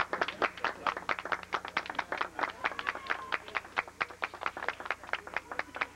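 A small group of people clapping their hands: a quick, irregular run of claps, several a second.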